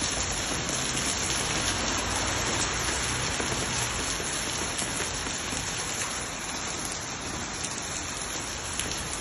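Hailstorm: hailstones and rain coming down steadily, a dense hiss of countless small impacts.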